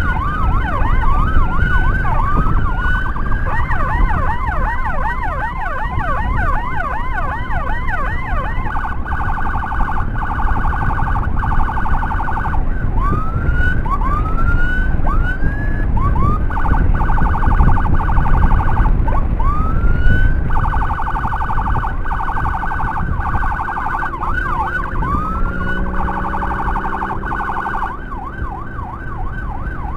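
Motorcycle-mounted 60-watt electronic siren being switched between modes: short rising whoops, a run of fast chirps, then stretches of steady rapid warble alternating with more whoops. Motorcycle engine and wind rumble run underneath.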